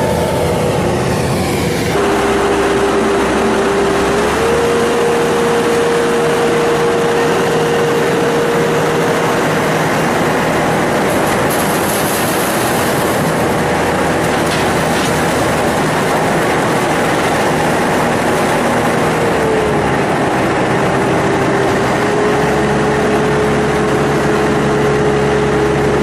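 Self-propelled four-row corn harvester running at work: a loud, steady drone of engine and machinery with a whine that steps up and down in pitch a few times.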